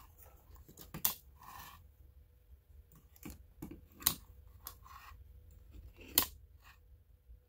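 Plastic clip-on current clamps being handled and moved along a wire: their jaws snap open and shut in a few sharp clicks, about 1, 4 and 6 seconds in, with lighter ticks and plastic and cable rubbing between them.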